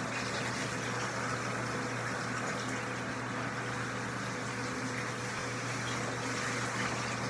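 Handheld shower sprayer running steadily, water spraying onto a wet dog's coat and splashing into a bathtub.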